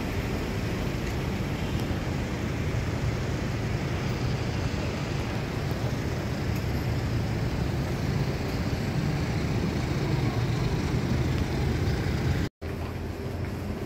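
Steady rumble of road traffic, with no single vehicle standing out; the sound cuts out for a moment near the end.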